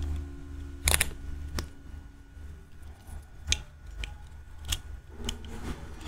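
Whittling knife cutting small chips from a hand-held piece of wood: a series of short, crisp cuts, about half a dozen, the loudest about a second in.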